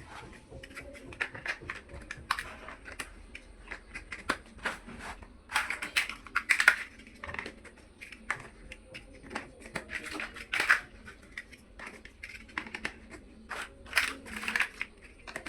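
Small plastic building blocks being handled and pressed together: irregular clicking and clattering, with louder bursts about six, ten and fourteen seconds in.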